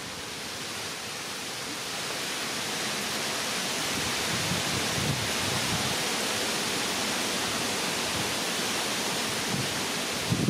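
Steady rushing noise of wind, growing slowly louder over the first few seconds, with a few soft low thumps around the middle.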